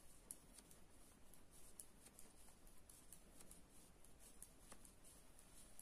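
Faint, irregular ticking of metal knitting needles and the soft rub of yarn as garter stitches are knitted, over quiet room hiss.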